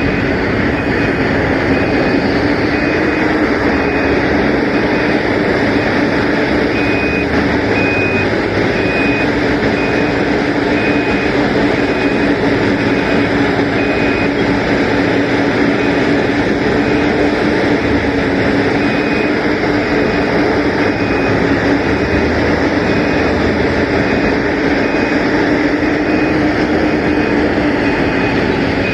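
Heavy mining machinery (a large loading shovel and an ultra-class haul truck) running steadily with a deep diesel drone. A backup alarm beeps about once a second, coming and going in stretches.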